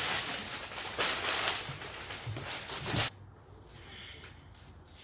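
Crumpled brown packing paper rustling as gloved hands dig through it in a cardboard box. The rustling stops sharply about three seconds in.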